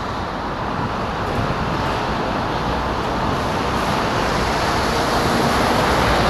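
Steady road traffic noise heard from the road, slowly growing louder.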